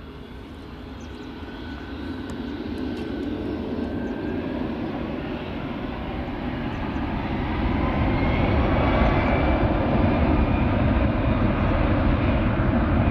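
Four Rolls-Royce Trent 500 turbofans of an Airbus A340-600 spooling up to takeoff power at the start of the takeoff roll. It is a deep jet rumble that grows steadily louder, with a faint whine that rises in pitch about two-thirds of the way in.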